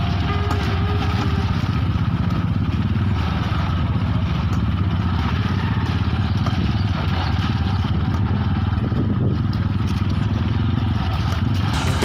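Small motorcycle engine running steadily at low speed on a rough dirt track, heard from the rider's seat, with a noisy rushing over the top.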